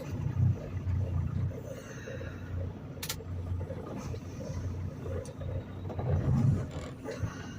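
Semi truck's diesel engine idling with a steady low rumble, a single sharp click about three seconds in and a brief swell in level around six seconds.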